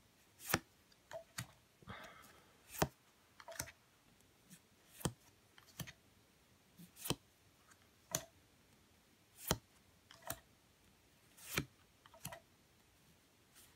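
Stiff board-game cards being flipped through one at a time in the hand, each card giving a short, faint click, about fourteen at uneven intervals.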